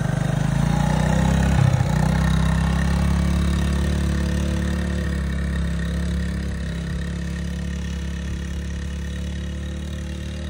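1985 Honda ATC70 three-wheeler's small four-stroke single-cylinder engine pulling away under throttle, loudest about a second or two in, then running at a steady low speed and slowly growing fainter as it moves off.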